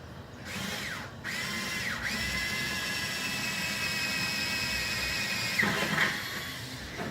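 Power drill boring a hole through a car's sheet-metal fender with an unoiled bit. The motor spins up twice in short pulls, holds a steady high whine for about three and a half seconds, then winds down near the end.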